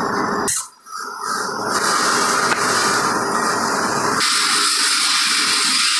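Steady machinery noise in a wood-panel factory. It drops out briefly about half a second in, returns, and at about four seconds changes abruptly to a brighter, thinner noise.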